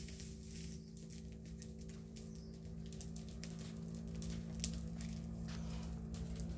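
Heap of dry brush and leaves burning, with sharp irregular crackles and pops, over a steady low hum.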